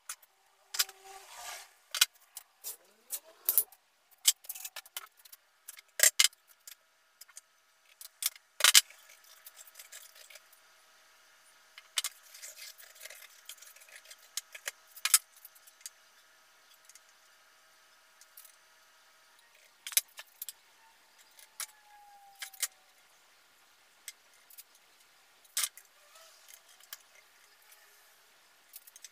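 Scattered sharp knocks and clicks of hand tools and a wooden strip being picked up, laid down and moved about on a workbench during layout marking, busiest in the first few seconds and sparser afterwards.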